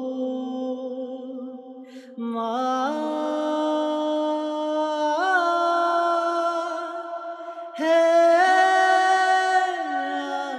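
Background music: a solo wordless voice holding long notes that slide from one pitch to the next, in phrases a few seconds long, with a short break about two seconds in and a louder phrase near the end.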